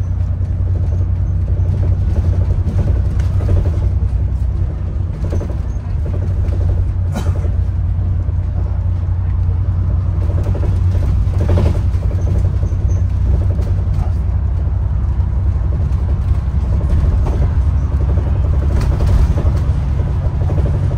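A bus on the move, heard from inside: a steady low rumble of engine and road noise, with a few knocks and rattles from the body.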